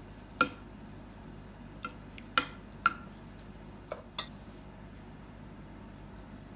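Metal ladle tapping and scraping against a ceramic baking dish as sauce is spread: a handful of short, sharp clinks over the first four seconds, the loudest about three seconds in.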